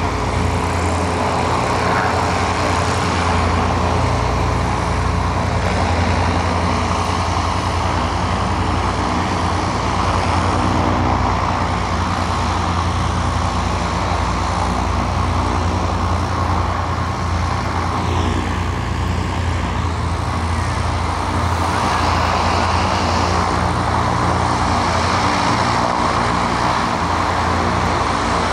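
Zeppelin NT's piston engines and propellers running with a steady drone as the airship hovers low for landing.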